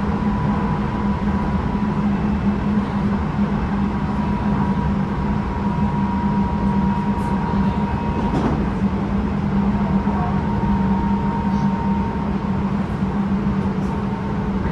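Interior running noise of a Tobu 9050 series electric train, heard inside a motor car: a steady rolling rumble with a faint steady whine, and the car's air conditioning running.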